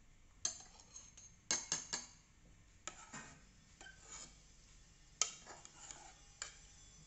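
Metal spoon clinking against a metal cooking pot and the rim of a glass while scooping and dropping topping into the glass: about ten sharp, irregular clinks, some ringing briefly.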